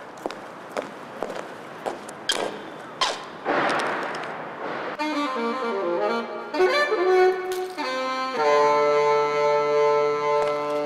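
High-heeled footsteps clicking on a concrete floor, about two steps a second, with a short burst of rushing noise around four seconds in. From about five seconds in, a saxophone-like melody takes over and settles into long held notes.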